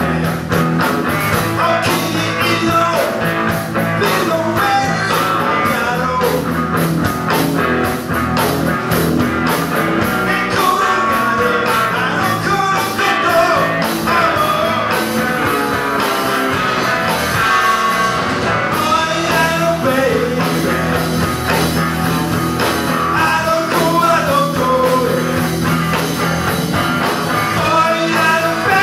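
Live rock band playing: distorted electric guitars and a drum kit, with a man singing.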